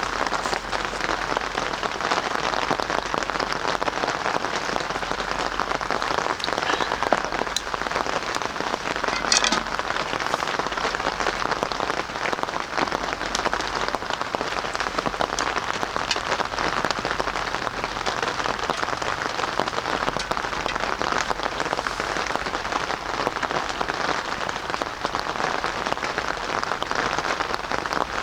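Steady rain falling, an even hiss of drops with sharper single drops or ticks standing out now and then, one louder about nine seconds in.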